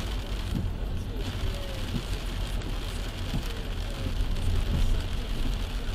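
Rain falling on a moving car while its tyres hiss on the wet road, over a steady low rumble from the car, heard inside the cabin through a dashcam's microphone.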